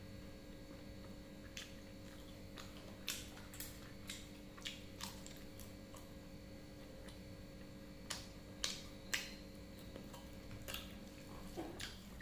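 A person eating close to the microphone: irregular sharp crunches and mouth clicks of chewing, with a faint steady hum underneath.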